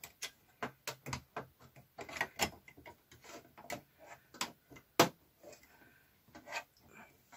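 Irregular clicks and knocks of plastic and metal parts as a Singer 360 knitting machine's knit contour module is worked loose, its release lever moved and the unit rotated out of its mount. One sharper knock comes about five seconds in.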